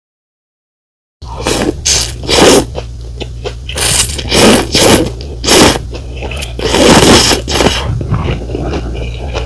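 Close-miked eating of pho rice noodles: about eight airy slurps and mouth noises in bursts of a fraction of a second each, starting after about a second of dead silence, over a steady low hum.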